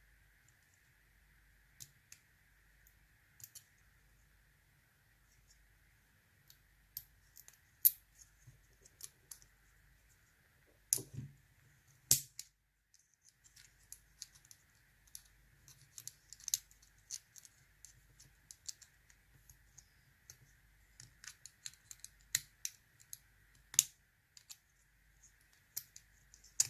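Irregular small metallic clicks and taps of hand tools working on an American A1100 padlock, with a few sharper knocks about 8 and 11 to 12 seconds in.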